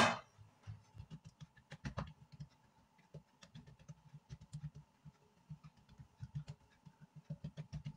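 Bare hands pressing, patting and stretching a sheet of oiled dough on a granite countertop: quick, irregular soft pats and small sticky slaps, several a second.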